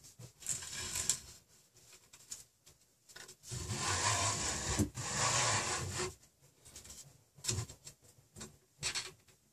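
Heatbed thermistor wire being drawn through holes in an MDF board, rubbing against the wood: a brief rub near the start, a louder continuous rub lasting about two and a half seconds in the middle, and a few short scrapes and taps near the end.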